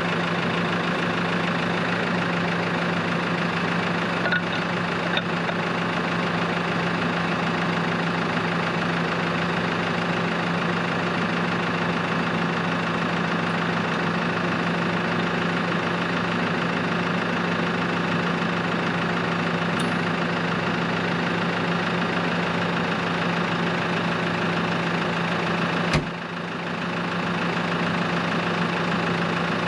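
New Holland Workmaster 105 tractor's diesel engine running steadily at idle. There is a single sharp clunk near the end.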